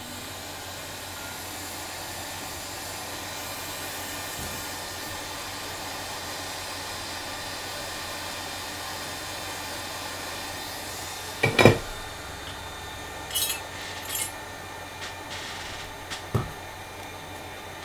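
Hot air rework station blowing steadily onto a chip to heat its solder. A sharp click comes about twelve seconds in, followed by a few light metallic clinks and a soft knock.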